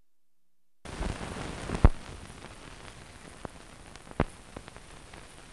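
Surface noise of an old film soundtrack: silence, then hiss and crackle start about a second in, with a loud pop near two seconds and another a couple of seconds later.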